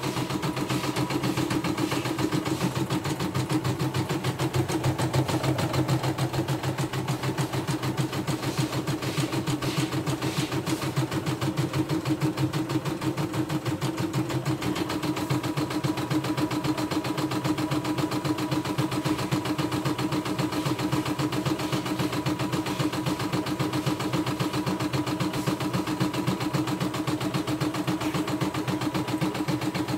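CNY E960 computerised embroidery machine running, its needle stitching out a design with a rapid, even stroke over a steady motor hum.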